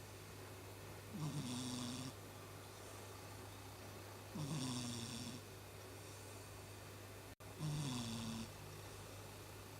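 Domestic cat snoring in its sleep: three snores about three seconds apart, each about a second long and dipping slightly in pitch at its start, over a steady low hum.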